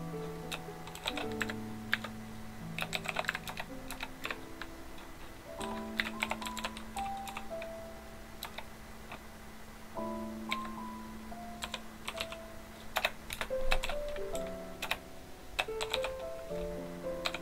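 Computer keyboard being typed on in short bursts of quick keystrokes, over background music with a slow melody of held notes.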